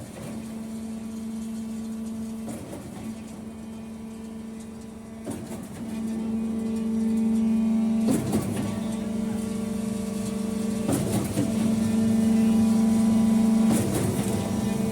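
HBS50 concrete pump running under load: a steady engine and hydraulic hum, with a heavy knock about every three seconds as the pumping cylinders change stroke.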